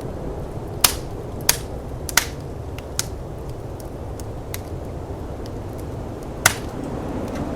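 Wood fire crackling, with several sharp pops scattered through, over the steady low rush of snowstorm wind.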